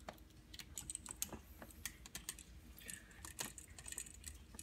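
Light, irregular clicks and ticks of a screwdriver turning and seating the side terminal screws of an electrical outlet, the tip and screws clicking against the outlet's metal and plastic as it is handled.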